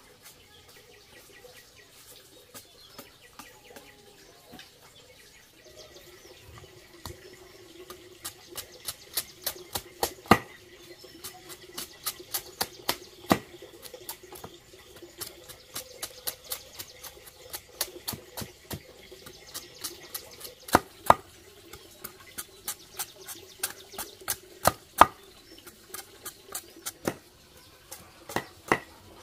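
A large knife chopping cassava roots on a wooden block: a run of sharp, irregular chops, a few per second, starting about a quarter of the way in after a quieter stretch.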